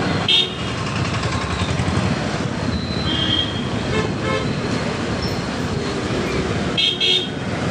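Steady engine and road noise of a motorbike riding through town traffic, with several short vehicle horn toots, two of them close together near the end.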